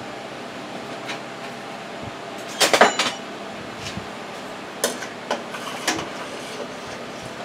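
Kitchenware clattering as ingredients go into a stainless steel stockpot: a quick rattle of clinks about two and a half seconds in, then a few single clinks.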